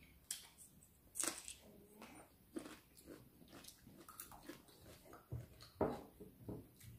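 Quiet sounds of people eating at the table: a few scattered soft clicks and knocks at irregular intervals, with chewing. The loudest knock comes near the end.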